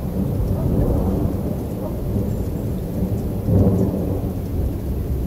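Thunder from a thunderstorm rumbling continuously, swelling louder about three and a half seconds in.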